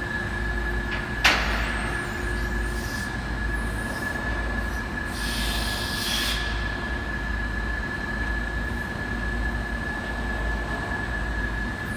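Car-stacker parking lift raising a parked car: its motor runs with a steady high whine and a low hum, with a sharp clank about a second in and a short hiss around five seconds in.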